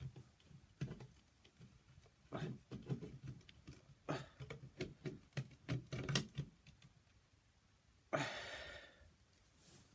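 Plastic smoke alarm and its mounting base handled: a run of light clicks and knocks, then a scraping rustle of about a second near the end.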